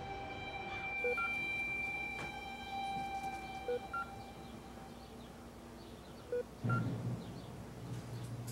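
Bedside patient monitor beeping: a short two-tone beep, a low tone then a higher one, repeating about every two and a half seconds, three times.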